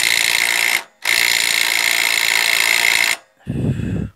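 Cordless power tool spinning a socket on the mower deck's idler tensioner stud, run in two long bursts of about one and two seconds with a short break between. A shorter, lower-pitched burst follows near the end.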